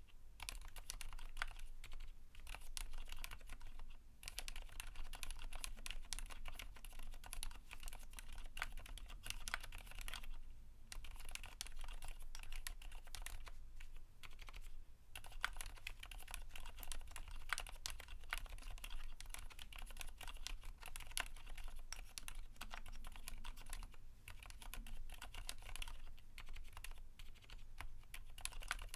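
Continuous fast typing on a Keychron Q1 mechanical keyboard with lubed 62 g Cherry MX Silent Black linear switches and PBT keycaps: soft, damped keystroke clicks, with a few short pauses.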